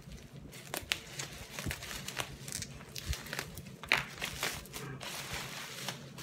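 Clear plastic packaging crinkling and rustling as it is handled and pulled open, with irregular sharp crackles.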